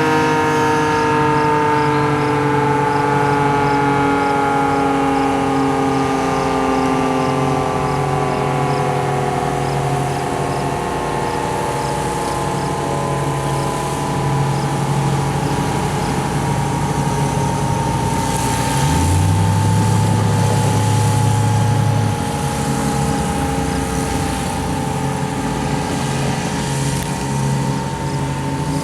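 Early-1960s Federal Signal 2T22 two-tone electromechanical siren winding down: its tones slide slowly and steadily lower in pitch as the rotors coast.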